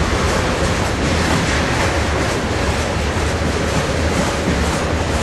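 Norfolk Southern freight cars (tank cars, then covered hoppers) rolling past: a steady rumble of steel wheels on rail, with faint irregular clicks from the wheels running over the track.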